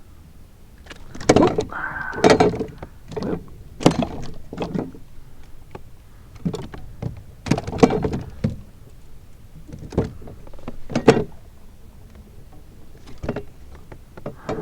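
Irregular knocks and thumps on a plastic kayak's hull and gear, with short scrapes between them, as a freshly caught crappie is handled on board.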